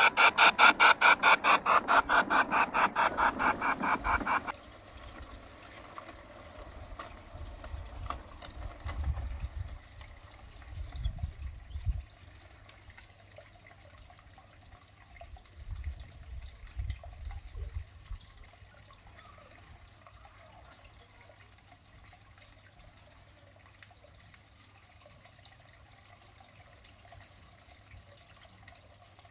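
G scale model train running, heard from a camera riding on the train: a rapid, even clatter of about seven beats a second that cuts off abruptly about four seconds in. Faint irregular low rumbles follow.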